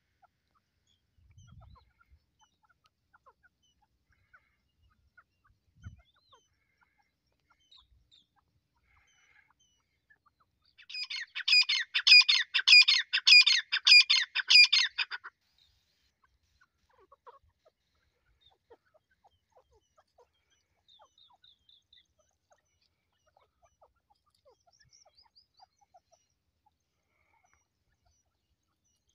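Grey francolin calling: a loud burst of about ten quick repeated notes lasting about four seconds, starting about a third of the way in. Faint scattered chirps before and after.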